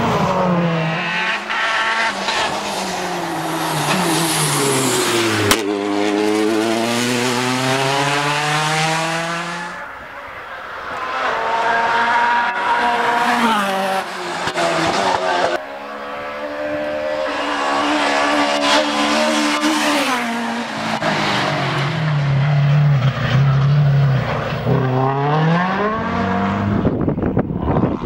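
Rally cars passing at speed one after another on a tarmac stage, each engine note climbing and dropping with hard acceleration and gear changes.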